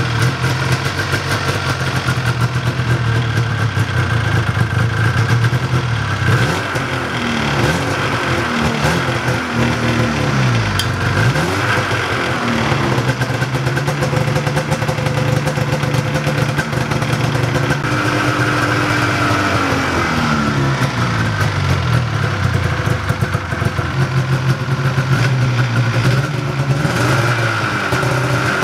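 Old two-stroke snowmobile engine running in the chassis, idling unevenly. It is revved up and down by hand twice, about a quarter of the way in and again about two-thirds through, and settles back each time.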